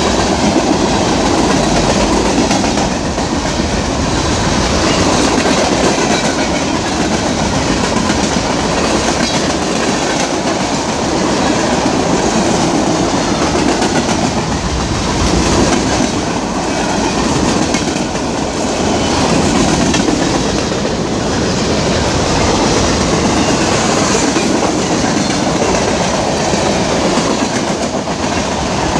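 Freight train of open-top hopper cars passing close by: steel wheels running on the rails, a steady, loud noise with no let-up.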